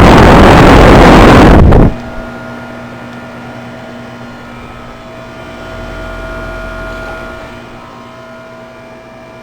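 A very loud rushing noise for about the first two seconds that cuts off suddenly, then a 2008 Goodman heat pump's outdoor unit humming steadily with a few constant tones, a low rumble swelling and fading in the middle.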